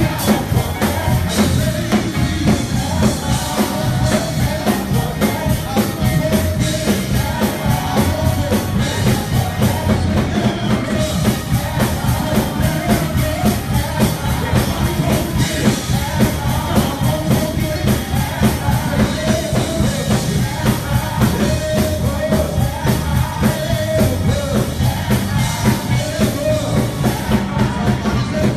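Live gospel worship singing: lead and backing voices on microphones over a band with a drum kit keeping a steady, busy beat.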